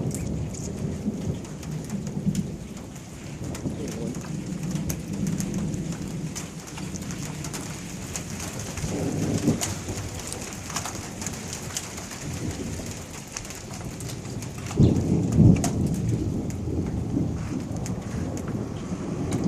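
Rain falling in a thunderstorm, with fine drop ticks, over a low rumble of thunder that swells loudest about three-quarters of the way through.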